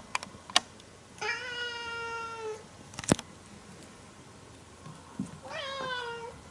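Domestic cat meowing twice, each a long drawn-out meow with a slightly falling pitch. A few sharp clicks come in between.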